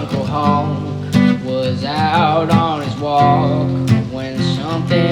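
Music: a song with strummed acoustic guitar.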